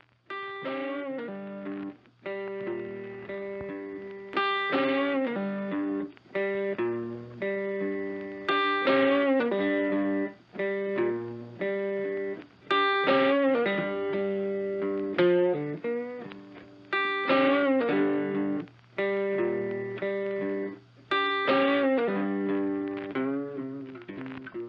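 Background music: guitar playing repeated chords and picked notes in phrases of a few seconds.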